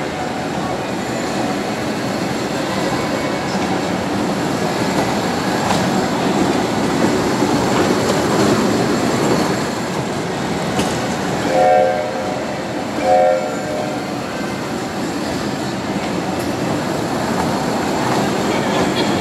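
Kiddie train ride running with a steady noise, and about twelve seconds in its horn sounds two short toots, about a second and a half apart.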